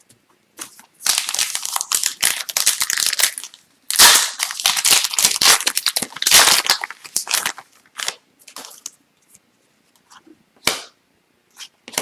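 Foil wrapper of an Upper Deck hockey card pack being torn open and crinkled in two long stretches, the second louder, then a few light clicks as the cards are handled.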